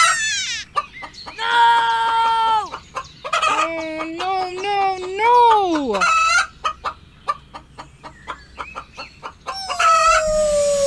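Rooster crowing twice, each crow a long call that drops away at the end, with short sharp clucks in between. Near the end a long, slowly falling call begins.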